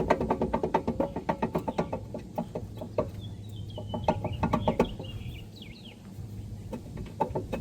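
Rapid metallic clicking from hand work on the car's brake and hub assembly, a fast run of clicks at first, then further short bursts.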